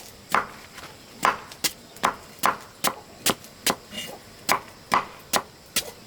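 Steady rhythmic chopping: a blade striking about two and a half times a second, each stroke a sharp knock.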